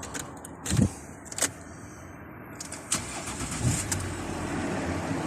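Ford Territory SZ engine being started with a newly cut and programmed key, which the immobiliser accepts. A thump and a click come in the first second and a half, then the engine runs steadily from about three seconds in, growing slightly louder.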